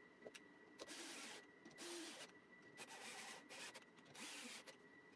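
Thin MDF saw-blade sleeves sliding in and out of the wooden storage frame's slots: five short, faint rubbing scrapes, each about half a second long.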